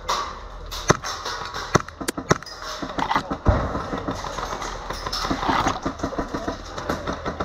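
Airsoft gunfire: a few sharp single cracks in the first couple of seconds, then two stretches of fast rattling bursts, with a heavy thump about halfway.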